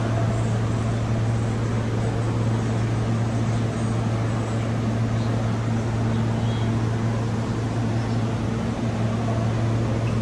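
Steady low mechanical hum in a subway station, a constant deep drone with a fainter higher tone over it and no change in level.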